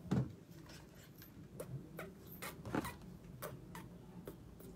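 Faint, irregular small clicks and taps, a few a second, over a low steady hum, with one louder short knock right at the start.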